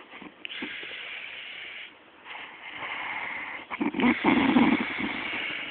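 A woman snoring loudly in deep sleep: two long snores, the second louder and rough-sounding near its end.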